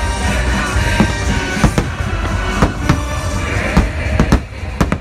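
Fireworks show soundtrack music played loud over loudspeakers, with several sharp bangs of firework shells bursting over it.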